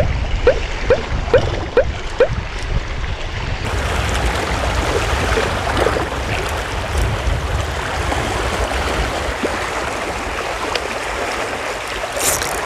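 Waves washing against seawall rocks, with wind buffeting the microphone. In the first two seconds a spinning reel being cranked gives a short squeak about twice a second.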